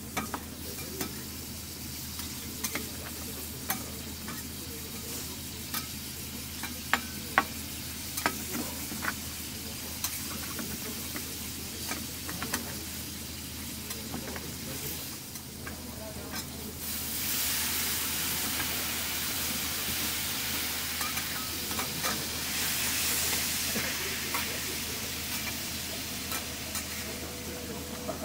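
Offal sizzling on a flat steel griddle, with a metal spatula clicking and scraping against the plate. A little past halfway the sizzle swells into a much louder hiss as a cloud of steam rises off the griddle, and it surges once more a few seconds later.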